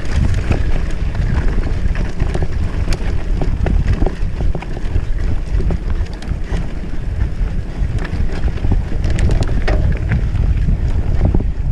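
Wind buffeting the microphone of a camera mounted on a mountain bike's handlebars during a trail ride, a continuous low rumble with frequent short clicks and rattles as the bike runs over the rough dirt track.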